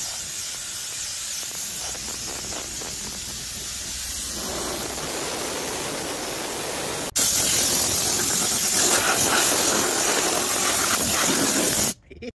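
Pressure washer spraying water over a car during detailing, a steady hiss. It gets louder about seven seconds in and cuts off abruptly near the end.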